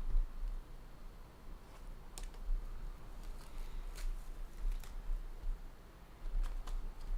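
Scattered faint clicks and taps from trading cards and packs being handled on a table, over a steady low hum.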